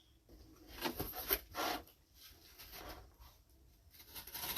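Handling noises: scattered short rubs and scrapes with a few light knocks, as objects are picked up and moved about.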